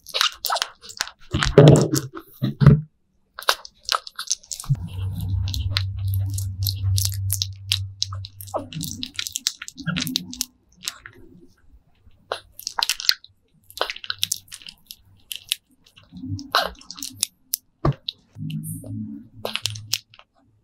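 Baby civet chewing and smacking as it is hand-fed, with many wet mouth clicks and bites. A low steady hum runs for a few seconds around the middle, with shorter low rumbles later.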